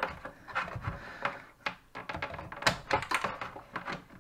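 Irregular small clicks and taps of plastic parts and a circuit board being handled and shifted by hand inside an opened Cricut Maker 3 cutting machine, with a quick run of clicks about three seconds in.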